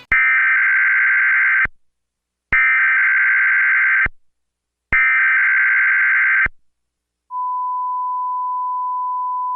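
Emergency Alert System SAME header: three bursts of warbling data tones, each about a second and a half long with short silent gaps between them. About seven seconds in, a steady single-pitched attention tone begins.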